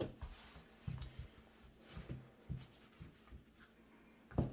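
Soft, irregular low thumps and rustles from a handheld camera being moved and handled, over a faint steady hum; the loudest thump comes near the end.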